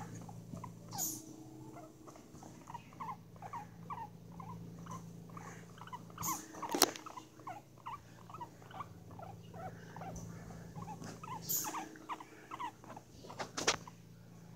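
Guinea pigs making a rapid run of short, soft squeaky calls, several a second, with a few sharp clicks or bumps, the loudest about halfway through.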